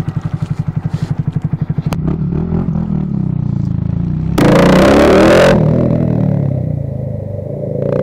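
Honda Grom MSX125's 125 cc single-cylinder four-stroke engine, breathing through a cheap aftermarket dual-outlet full exhaust, idles with an even putting beat, then revs up as the bike pulls away about two seconds in. Midway a loud rushing noise covers the engine for about a second.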